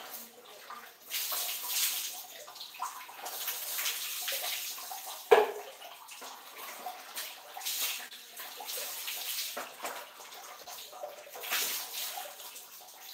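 Water poured and splashing in a tiled bathroom during a bucket bath, coming in repeated irregular splashes, with one sharp knock about five seconds in.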